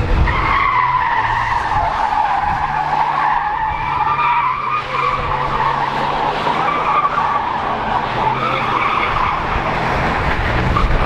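Car tyres squealing without a break as a sedan drifts, the squeal wavering up and down in pitch. Underneath it the engine holds steady high revs.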